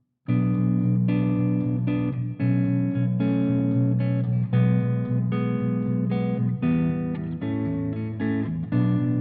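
Ibanez GRG7221QA seven-string electric guitar playing a run of chords, starting about a quarter second in, with the chords changing every half second to a second.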